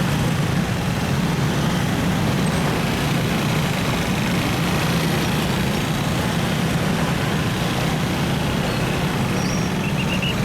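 Steady low hum of a car's engine and road noise in a traffic jam, with no changes or sudden sounds.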